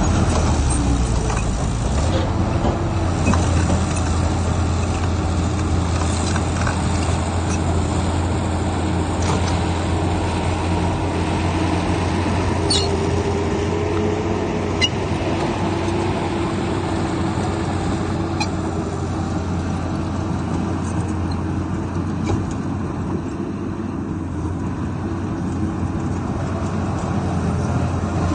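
Heavy diesel earthmoving machinery running steadily, with a deep constant hum and a few faint clicks.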